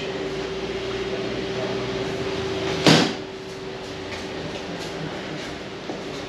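A steady electric motor hum with a single loud, sharp clack about three seconds in, after which the hum is fainter.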